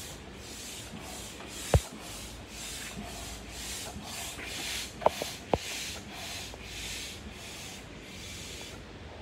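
Stand-up hand air pump worked up and down to inflate a portable vinyl swimming pool, each stroke a hiss of air, about two strokes a second, stopping just before the end. A few sharp knocks sound among the strokes, the loudest about two seconds in.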